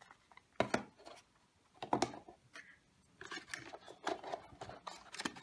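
Hands handling a cardboard box and its paper inserts: a few separate light taps and clicks, then a longer run of rustling and scraping in the second half.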